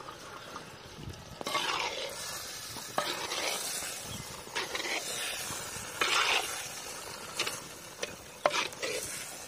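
A metal slotted spatula stirring boiled green peas and peanuts through sizzling masala in a clay pot (mann chatti). From about a second and a half in it scrapes loudly, with several sharp clicks of the spatula against the pot.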